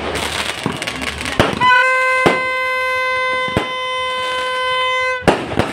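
Fireworks crackling and banging, then a loud, steady, shrill tone held at one pitch for about three and a half seconds, with a couple of sharp bangs over it, before it cuts off near the end.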